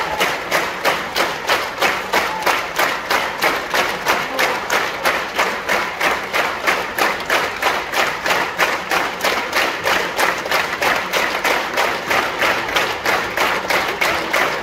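Theatre audience clapping in unison at a curtain call, a steady rhythm of about three claps a second that keeps going without a break.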